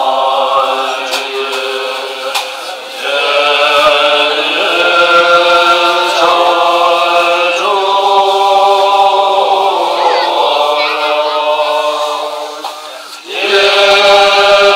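Tibetan Buddhist monks chanting prayers together in unison, their men's voices holding long, steady notes. The chant breaks briefly for breath about three seconds in and again near the end, then resumes.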